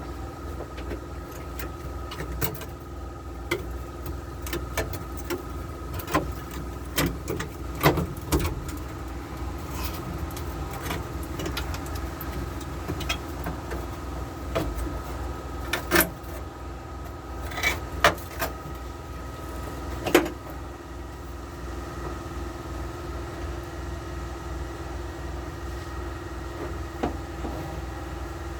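Angle grinder with a cutting or grinding wheel running steadily at speed, with sharp metallic clicks and knocks as it is worked against the rusted steel of the old floor pan and its spot welds. The loudest knocks come about 8, 16, 18 and 20 seconds in.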